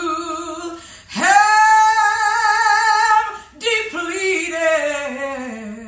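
A woman singing a hymn solo and unaccompanied: a held note, then about a second in a swoop up into a long high note with vibrato, and after a short break a phrase stepping down in pitch.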